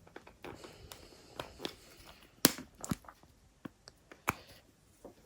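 Plastic back cover of a OnePlus One being prised off by hand: scattered small clicks and crackles as its retaining clips give way, with a few sharper snaps in the middle, the loudest about two and a half seconds in.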